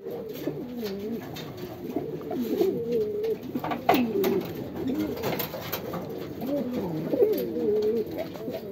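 Many domestic pigeons in a loft cooing at once, their overlapping, wavering coos running on without a break.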